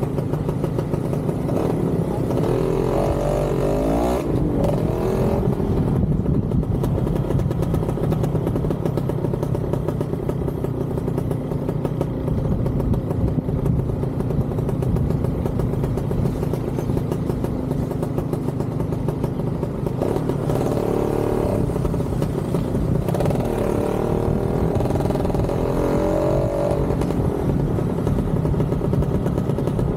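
Motorcycle engine running under way, a steady drone over low wind rumble. Its pitch swings up and down twice, a few seconds in and again past the middle.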